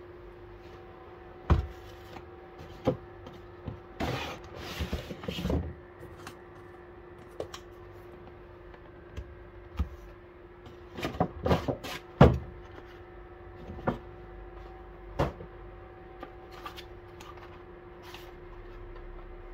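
Unboxing handling sounds on a countertop: scattered knocks and taps as a cardboard product box and a small boxed spoon are picked up and set down, with a stretch of packaging rustling about four seconds in. A faint steady hum runs underneath.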